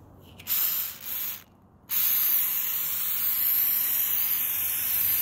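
Aerosol can of truck bed liner spraying a steel bed-frame strut: two short bursts, a brief pause, then one long continuous spray.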